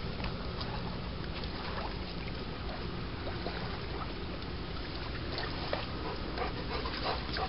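A dog's small sounds close by, with a few soft clicks over a steady background hiss.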